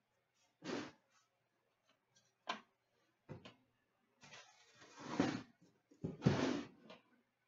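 Handling noises from trading cards and a sealed cardboard card box on a glass-topped table: a few short knocks and taps, then two longer scraping slides in the second half as a box is pulled from the row.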